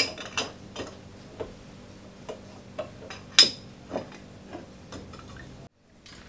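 Irregular sharp clicks and knocks of a glass beer bottle being fitted and worked into a counter-pressure bottle filler's cradle, about two a second, the loudest with a short glassy ring about three and a half seconds in.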